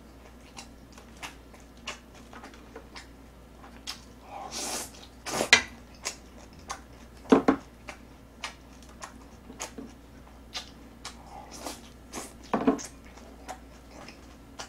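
Close-miked eating: chewing and small mouth clicks, with chopsticks clicking against plates and a pan and a few louder knocks and smacks.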